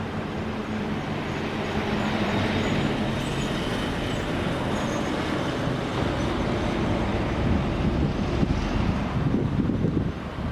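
Airliner cabin noise: a steady jet-engine drone and rushing air, with a rougher, uneven low rumble growing over the last few seconds.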